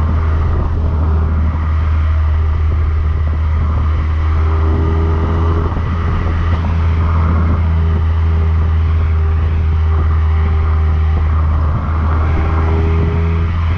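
Decat (catalytic-converter-delete) exhaust of a Mazda MX-5 NB's four-cylinder engine, heard right at the tailpipe while the car is driven along, a loud steady low drone at a fairly constant engine speed.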